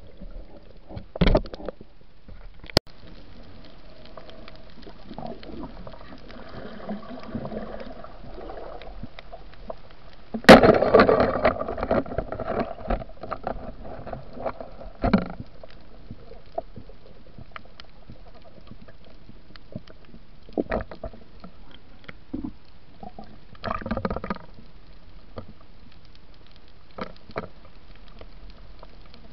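Muffled underwater sound from a camera housing carried by a night spearfisher: water sloshing and bubbling around it, with scattered knocks and clicks. A loud rush of water about ten seconds in dies away over a couple of seconds, and shorter rushes come a second in, at about fifteen seconds and at about twenty-four seconds.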